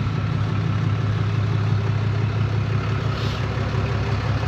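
Large engine idling steadily with a low, even hum.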